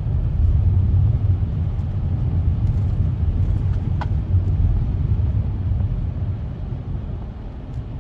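Heavy road vehicle, likely the snowplow truck, driving with a steady low rumble of engine and road noise that eases slightly near the end.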